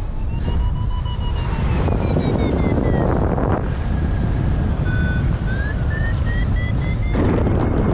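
Wind buffeting the microphone in paragliding flight, with gusts louder about three seconds in and near the end. Over it, a variometer's beeping tone glides up and down in pitch and rises again in the second half, the way a vario signals lift.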